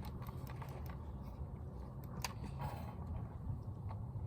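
Handling of a plastic gel blaster: a few faint plastic clicks and one sharp click about two seconds in. The blaster does not fire because its battery is not in. A low steady hum runs underneath.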